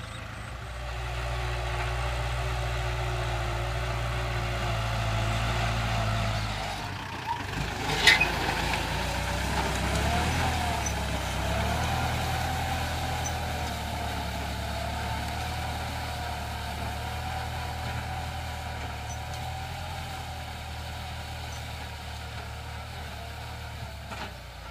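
Kubota L5018 tractor's diesel engine running steadily under load as it pulls a disc plough through dry field soil. A short sharp click about eight seconds in.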